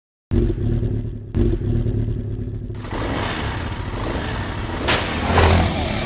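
Motorcycle engine sound effect: the engine catches suddenly about a third of a second in and runs with a low, steady rumble, then is revved, louder and noisier, from about three seconds in.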